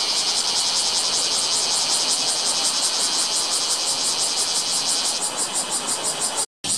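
Bear cicada (kumazemi, Cryptotympana facialis) singing loudly, a rapid, evenly pulsed high buzz. It cuts out suddenly for a fraction of a second near the end.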